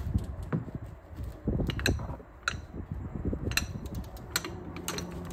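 Swivel-head ratchet with a jack handle over it as a cheater bar, levered to break loose a brake caliper bracket bolt. Sharp metal clicks come at irregular intervals over low scuffing noise. A low steady hum comes in about four seconds in.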